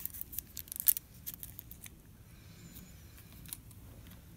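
Faint handling sounds of fingers whipping embroidery thread around a fishing hook's shank and over a folded foil-wrapper tinsel: small scattered ticks and crinkles, most of them in the first second or so.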